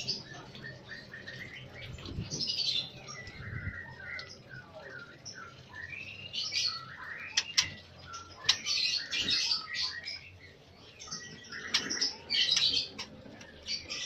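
Lovebirds chirping: bursts of high-pitched chirps from several birds, overlapping, with a few sharp clicks in the middle.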